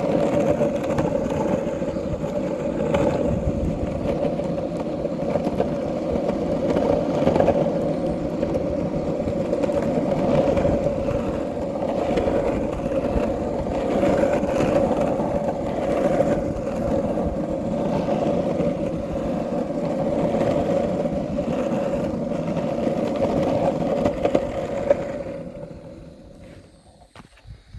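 Longboard's urethane wheels rolling over rough, cracked asphalt: a steady rumbling roar with a constant hum in it. It dies away near the end as the board rolls to a stop.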